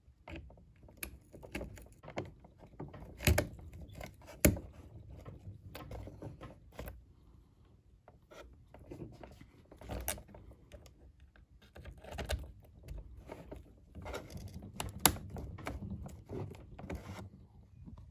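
Gloved hands fitting coil-over shock absorbers onto an RC buggy's aluminium shock tower: irregular clicks and knocks of plastic and metal parts over glove handling noise, the sharpest knocks about three, four and a half and fifteen seconds in.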